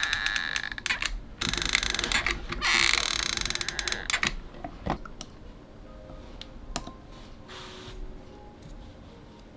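Hot glue gun creaking as its trigger is squeezed to feed glue, a ratcheting squeal like an old storehouse door opening, in several pulls over the first four seconds. After that it goes much quieter, with a few light clicks.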